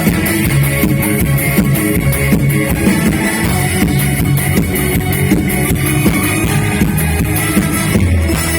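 Band music with a steady drum-kit beat and guitar, an instrumental stretch with no singing.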